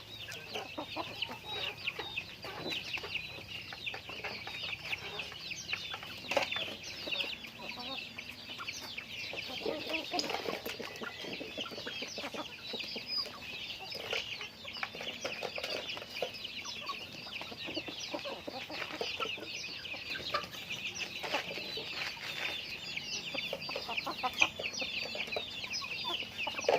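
A flock of chickens calling continuously: many short high-pitched calls overlapping throughout, with lower clucks mixed in. A few brief sharp taps, the loudest near the end.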